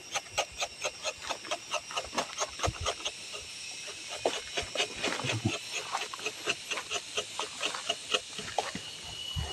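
Rubber-tapping knife shaving a thin strip of bark from a rubber tree's tapping cut, a rhythmic scratchy scraping at about four short strokes a second.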